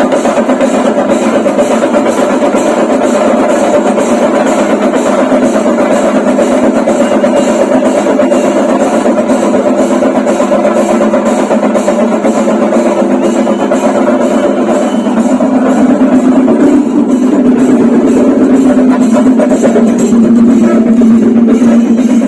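Chenda melam: a traditional Kerala ensemble of chenda drums playing dense, rapid drumming in a steady, driving rhythm. It swells slightly louder about two-thirds of the way through.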